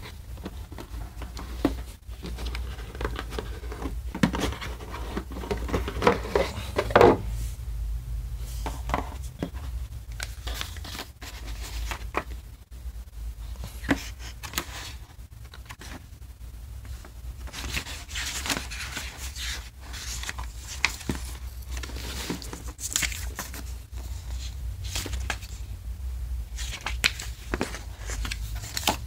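Hands unpacking a cardboard board-game box: the lid scraping and knocking as it comes off about a third of the way in, then cardboard pieces, crinkling plastic-wrapped card packs and a booklet's pages rustling, with scattered taps and clicks.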